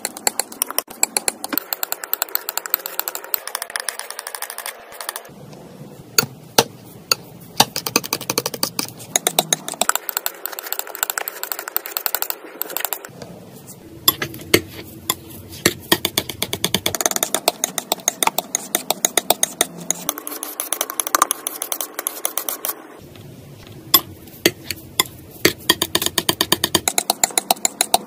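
Steel palette knife working thick wet paint on a hard surface: a dense run of quick, sharp clicks and taps as the blade presses, scrapes and lifts the paint, coming in stretches with quieter gaps between them.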